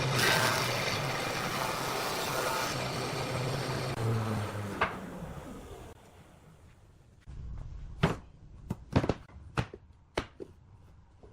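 A power tool's motor running with a steady hum, then winding down, its pitch falling away about five seconds in. Then a series of about eight sharp knocks, like wooden pieces being handled or tapped together.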